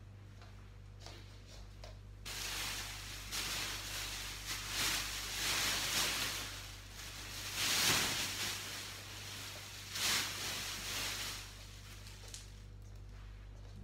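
A rushing hiss starts suddenly about two seconds in, swells and fades several times, and dies down near the end, over a steady low hum.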